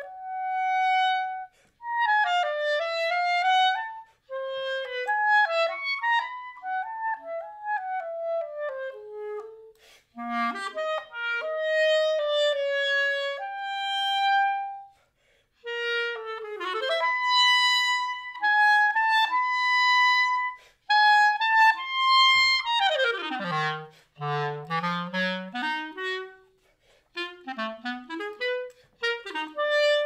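Solo clarinet playing short phrases of quick runs and held notes, broken by brief pauses. Near the end it makes a fast swoop down to the bottom of its range, then goes on with quick low figures.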